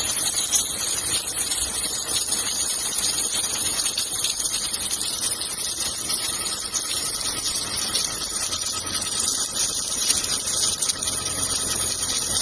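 Steady hiss with a rough machine noise underneath, from submerged arc welding equipment running.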